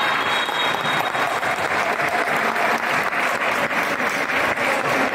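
Hand-clapping applause from spectators and players, which falls into a steady rhythmic clap after about a second.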